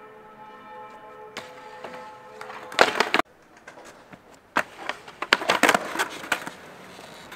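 Skateboards knocking and clattering on a wooden ledge and concrete pavement: a loud knock about three seconds in, then a run of sharp clacks of deck and wheels between about four and a half and six and a half seconds.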